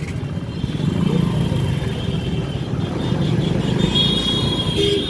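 Ride-along sound from a motorcycle in city traffic: a steady engine and road rumble, with a short vehicle horn beep near the end.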